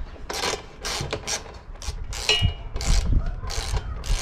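Hand ratchet with a 10 mm socket running in a rack bolt, which is being left loose for now: short bursts of pawl clicking, about two a second, with a brief metallic ring a little past halfway.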